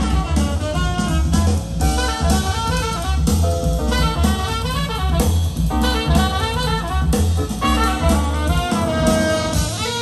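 Jazz with saxophone and drum kit playing through a pair of Monitor Audio Silver 100 6G bookshelf speakers.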